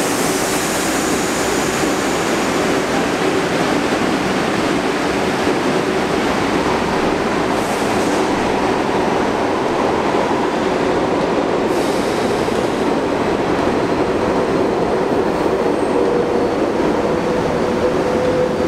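NYC Subway 42nd St Shuttle train of R62A cars running through the station on curved track: a steady, loud rumble of wheels on rail with a continuous whine over it.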